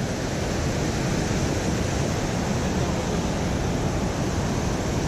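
Steady, even rush of high water pouring over a river spillway.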